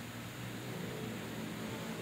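Steady, low outdoor city background noise: an even hiss with a faint low hum underneath and no distinct events.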